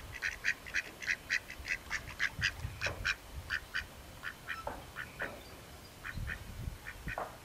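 Ducks quacking in quick runs, about five quacks a second for the first three seconds, then more scattered quacks, over a low rumble.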